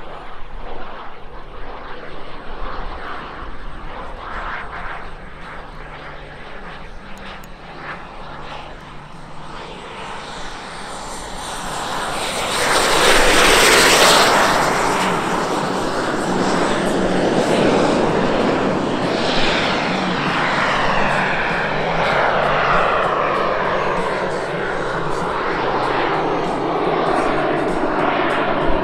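Gas turbines of two large-scale model Alpha Jets, each with twin JetCat P-400 turbines, a jet whine and rush that swells to its loudest as they make a low pass about halfway through. Afterwards the whine falls slowly in pitch as they pull away.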